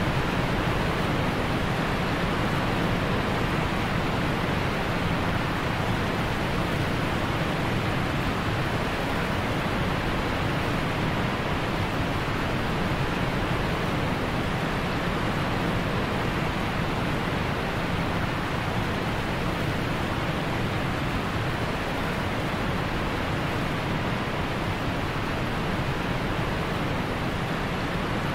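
Steady, unbroken noise of rushing water, as from a waterfall or fast mountain stream close by.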